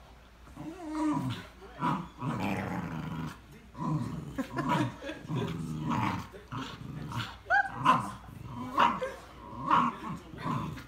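A Staffordshire bull terrier and an English bulldog growling in repeated bursts while tugging a plush toy between their jaws, with a brief high squeal about seven and a half seconds in.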